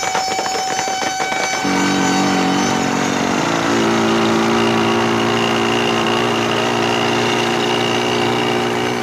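Rapid cracks for about the first second and a half, then a motorbike engine starts running and holds a steady note, shifting pitch in steps twice early on before settling.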